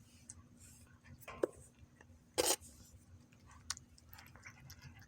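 A few short clicks and taps over a steady low hum, the loudest about two and a half seconds in.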